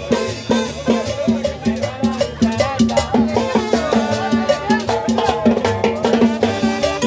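Salsa music with a steady percussion beat and a running melody.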